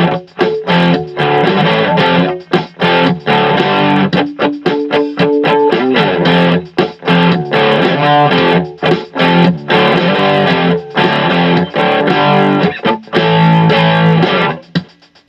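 Electric guitar played through a Joyo DC30 amplifier, short chords and riffs with frequent brief stops between them.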